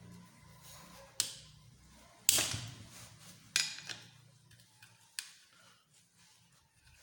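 Hand tools and metal engine parts being handled during teardown of a small 110cc motorcycle engine: a handful of separate sharp knocks and clinks. The loudest comes about two seconds in and rings briefly.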